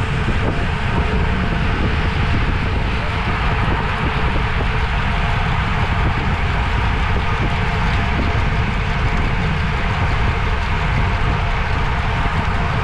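Steady wind rush and road noise on a camera riding along on a road bike at speed, with a heavy low rumble and a faint steady whir.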